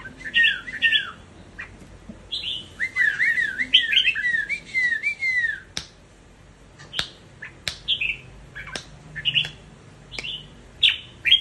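Caged red-whiskered bulbul decoy singing: quick runs of clear, downward-slurred whistled notes, then short sharp calls spaced about a second apart in the second half.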